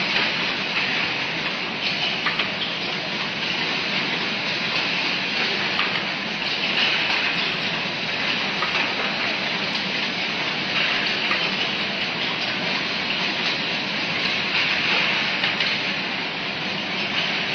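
Rigid box making production line running: a steady machinery hiss and whirr with a few faint clicks.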